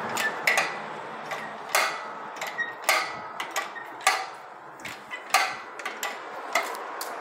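Irregular sharp metallic clicks and knocks, a dozen or so over several seconds, some with a short ring, from an engine crane and its lifting chains as a diesel engine is hoisted out of a pickup's engine bay.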